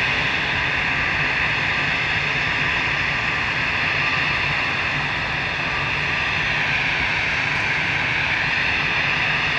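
Jet airliners' turbofan engines running at taxi power: a steady rushing hiss with a faint high whine on top.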